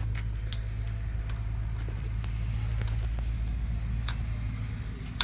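A steady low rumble with a few light clicks scattered through it, and a sharper click near the end.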